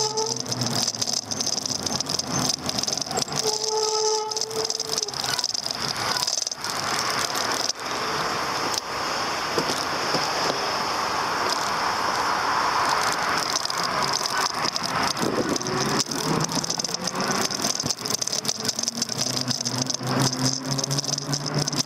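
An e-bike riding along a street, with the handlebar-mounted camera and bike frame rattling and knocking over the road surface throughout. A steady high whine runs underneath, and a louder rush builds up and fades away in the middle.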